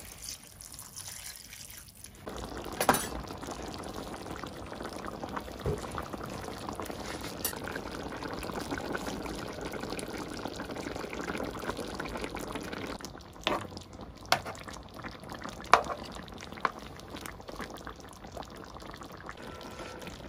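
Liquid poured into a pan of vegetables and a fish stew simmering, a steady watery bubbling. A few sharp knocks are scattered through it.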